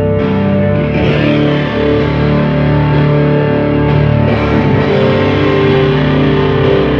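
Live drone rock: a loud, distorted electric guitar, a Travis Bean TB1000S with its aluminium neck, played through effects pedals, over a wall of held, sustained drone notes.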